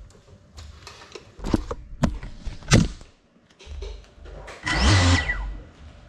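Handling knocks and clatter as a small FPV drone is picked up and set down on a tile floor: three sharp knocks in the first three seconds, then a louder rustling, scuffing noise about five seconds in.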